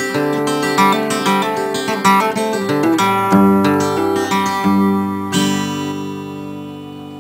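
Acoustic guitar music, picked and strummed, ending on a final chord about five seconds in that rings out and slowly fades.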